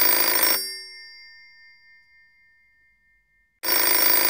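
Electric bell ringing in two bursts. The first ring stops about half a second in and dies away, and the second starts about three and a half seconds in.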